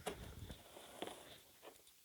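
Packaging being handled: faint rustling with a few light clicks and crackles, the clearest about a second in.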